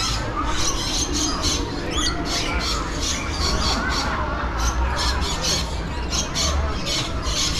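A flock of birds squawking and chattering, many short calls overlapping at once.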